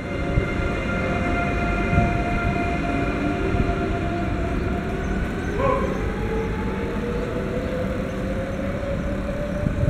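Electric trains running at a station platform: a steady hum with several whining tones, and from about halfway through one whine rising slowly in pitch as a train gathers speed.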